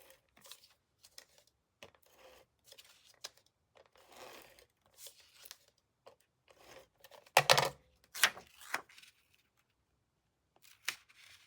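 Paper and cardstock being handled and glued down: soft intermittent rustling and sliding, with a louder paper rustle about seven and a half seconds in, followed by a few short crinkles.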